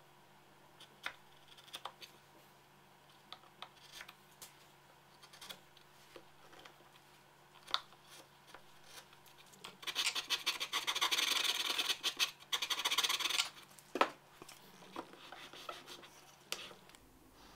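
A hand chisel paring and scraping the edge of a plywood panel: light scattered ticks and scrapes, then about three and a half seconds of steady scraping starting about ten seconds in.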